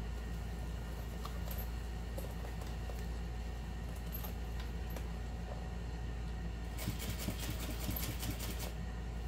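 Rustling and crinkling of a vinyl-and-fabric handbag being pushed and bunched up under a sewing machine, with scattered small clicks. It is loudest for about two seconds near the end, over a steady low hum.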